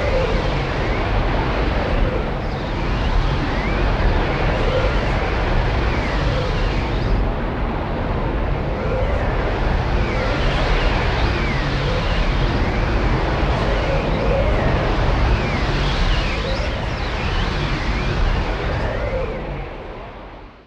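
Swirling vortex sound effect: a deep, dense whooshing noise laced with swooping tones that rise and fall again and again. It fades out near the end.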